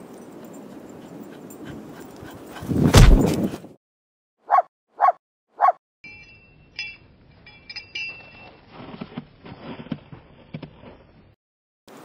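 Wind rushing on the microphone, swelling to a loud blast before cutting off. Then a schnoodle puppy barks three short barks about half a second apart. Faint clicks and scuffs follow.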